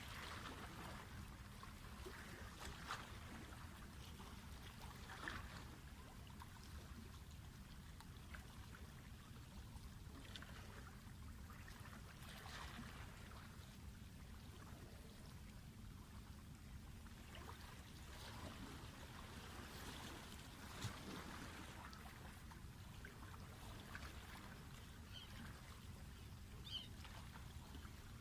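Faint water at the shore: small ripples lapping and trickling in slow swells every couple of seconds, over a low steady rumble, with a few small clicks.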